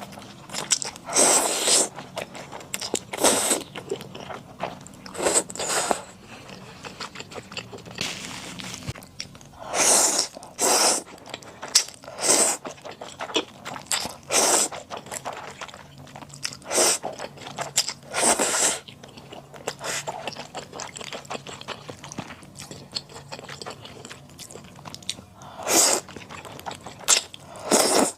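Close-miked eating of rosé buldak with flat glass noodles. Continuous chewing is broken by short, loud mouth noises every one to two seconds.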